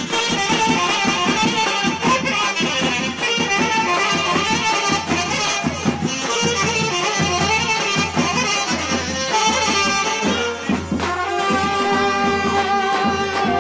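Live Balkan brass band playing a lively folk dance tune, with saxophone and trumpet carrying the melody over a steady beat.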